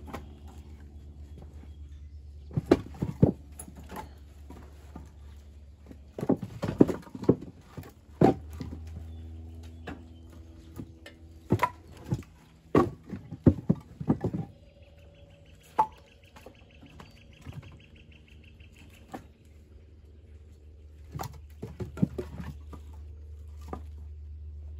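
Split oak firewood pieces knocking and clacking together as they are handed up and stacked into a wire-caged IBC tote, in several clusters of sharp knocks. A steady low hum runs underneath.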